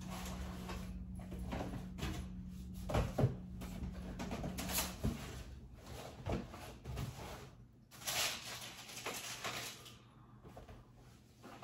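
Household objects being handled and set down: scattered knocks and thumps with stretches of rustling, over a steady low hum that fades out about halfway through.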